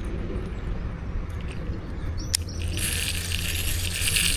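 A bird chirps briefly, then about three seconds in a small digital baitcasting reel starts a fast, hissing whir with rapid fine ticking as its spool spins, over a low steady rumble of wind on the microphone.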